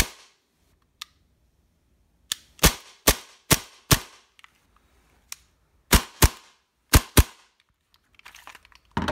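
Tokyo Marui Hi-Capa 4.3 gas blowback airsoft pistol fired with gas but no BBs: about nine sharp cracks of the gas venting and the slide cycling, some single and some in quick pairs, with a few faint clicks between. Light handling rattle near the end.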